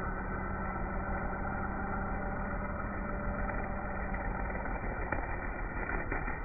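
Black Max 30cc four-stroke string trimmer engine running steadily, its spinning line cutting tall grass in the second half.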